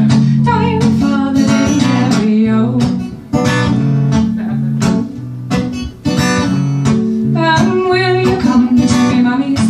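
Instrumental break of a folk song: acoustic guitar accompaniment with a clarinet playing the melody, dropping briefly twice near the middle.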